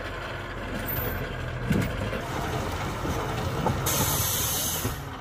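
Zetor Forterra 9641 tractor's four-cylinder diesel engine running steadily during log winching, with a loud hiss lasting about a second near the end.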